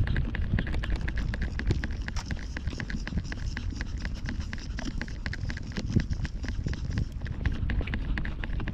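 Footsteps and jostling gear of someone walking on a paved path: a quick, irregular run of clicks and taps over a low rumble of wind on the microphone.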